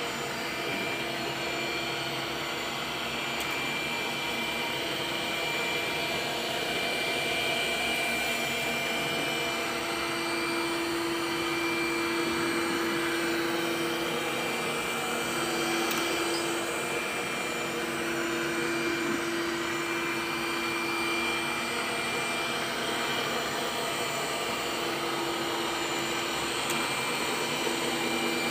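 Window-cleaning robot running on a pane of glass: the steady whine of its suction fan, with a lower tone that fades in and out several times as it moves across the glass.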